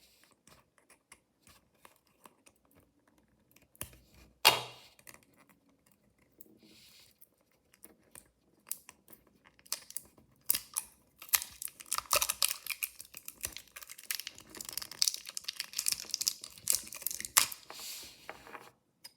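Mystery toy packaging being handled and torn open, with scattered small clicks, one sharp tear about four seconds in, and dense crinkling from about ten seconds on.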